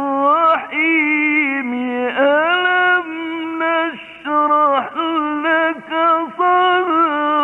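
A male Quran reciter chanting in the melodic mujawwad style: long held notes with trills and pitch slides, split by short breaks between phrases. It is an old recording with the high end cut off.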